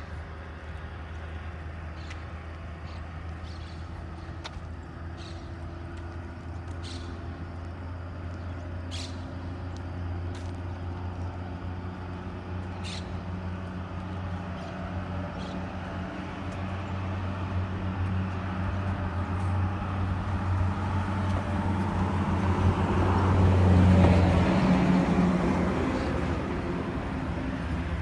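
A steady low engine hum that slowly grows louder, with a rush of noise swelling to a peak about 24 seconds in. Short high chirps are scattered through the first half.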